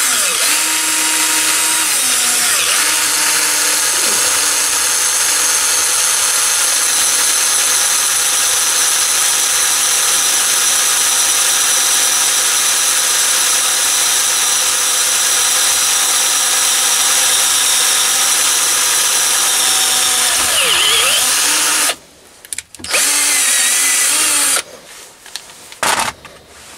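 Cordless drill driving a 6 mm combination drill-tap bit through steel angle iron, running steadily with a high motor whine and cutting noise. About twenty seconds in the motor slows, it stops, and then there is a second short run before it stops again.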